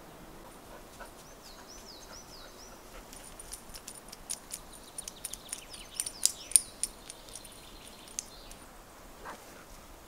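Small woodland birds singing: a few repeated arched whistled notes early on, then a run of high, sharp chirps and ticks through the middle, the loudest about six seconds in.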